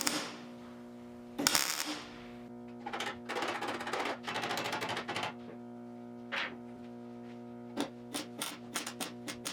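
Background music with a plucked-guitar sound and steady held notes. Short noisy bursts come near the start, a rasping stretch follows in the middle, and a run of quick sharp strokes, two or three a second, sets in near the end.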